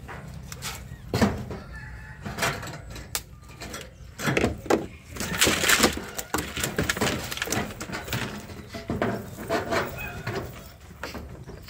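A cast net full of fish being handled and picked apart by hand: the mesh rustling and scraping, with scattered sharp knocks and clicks against the boat floor, loudest about four to six seconds in.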